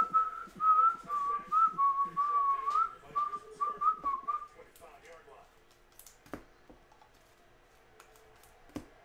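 A man whistling a short wandering tune in quick phrases for about four and a half seconds, then stopping; a couple of light clicks follow as cards are handled.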